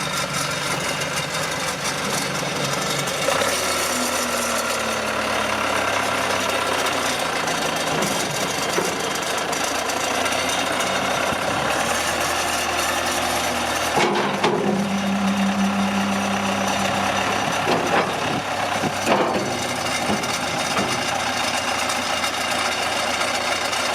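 Case 188D four-cylinder diesel engine of a 1979 Case 480C backhoe loader running steadily at idle, with a few sharp knocks a little past the middle.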